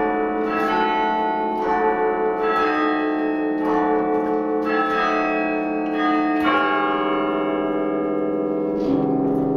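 A 72-bell bronze carillon played from its baton keyboard: chords of bells struck about once a second, the notes ringing on and overlapping. A fuller chord about six and a half seconds in is left to ring, and a lower bell chord sounds near the end.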